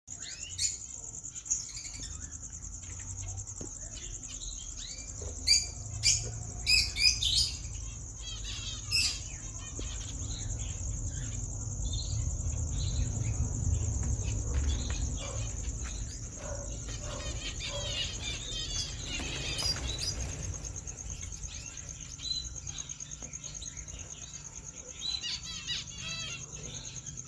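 Scattered short, high bird chirps and peeps, some in quick clusters, over a steady high insect drone and a low rumble of background noise.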